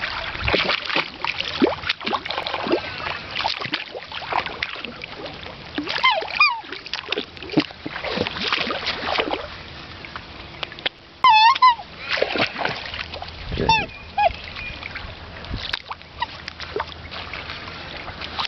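Black swans splashing and jostling in shallow water, with a few short, high calls from the birds, the loudest at about eleven seconds.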